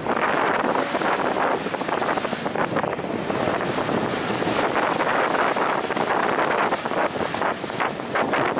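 Wind buffeting the microphone aboard a moving Star Ferry: an uneven, gusting rush, mixed with the ferry's running noise.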